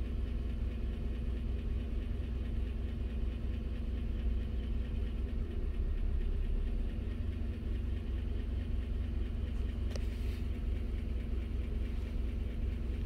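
A GM 5.3-litre direct-injection V8 idling steadily while a scan-tool injector balance test fires its cylinder-eight injector.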